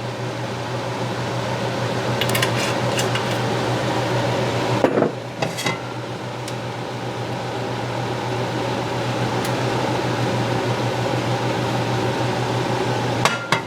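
Steady whirring hum of a kitchen fan while olive oil heats in a pan on the stove. A few light metal clinks come early on, with a brief clatter of the pan about five seconds in.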